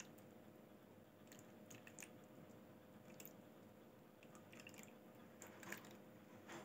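Near silence: lemon juice trickling softly from a glass bowl into a plastic ice cube tray, with a few faint ticks and a low steady hum.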